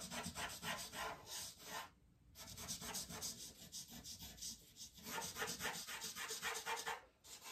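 Rolled-up tissue paper rubbing back and forth over charcoal on drawing paper, blending the shading in quick, even strokes of about four to five a second, broken by two short pauses.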